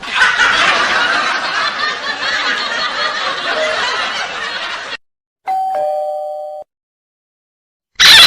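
A string of short comedy sound effects. First, about five seconds of dense, noisy rushing sound that cuts off suddenly. Then a two-note falling doorbell 'ding-dong' chime, and a brief loud burst at the very end.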